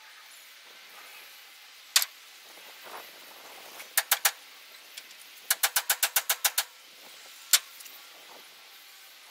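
Sharp metal-on-metal taps as a new torsion rod's bolt is worked into place with a hammer: one tap, then three, then a quick even run of about ten, then one more.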